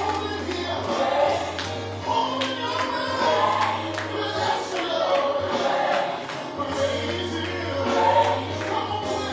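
Gospel music: a choir singing over drums keeping a steady beat.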